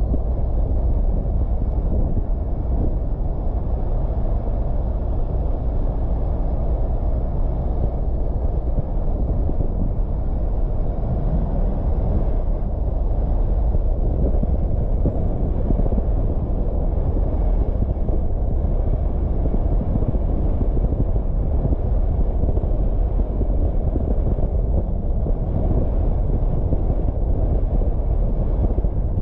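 Car driving on a mountain road: a steady low rumble of engine and road noise.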